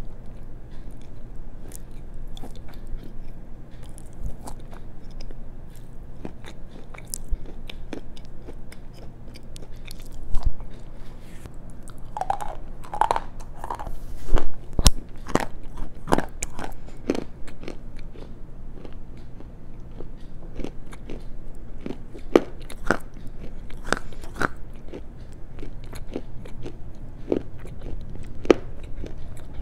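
Close-miked chewing of black slate and clay stones: irregular sharp crunches and clicks, busiest and loudest around the middle.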